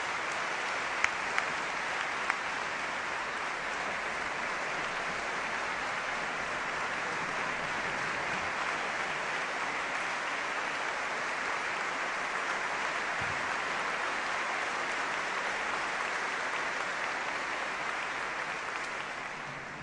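Concert audience applauding steadily, with a few sharp individual claps about a second in, dying away near the end.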